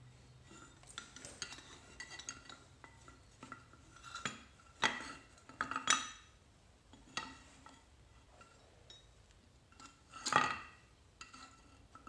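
Steel tongs clinking against a graphite ingot mould as it is lifted and tipped over, and the newly cast copper ingot knocking onto a concrete slab and being moved about. Irregular clinks and knocks, the loudest about ten seconds in.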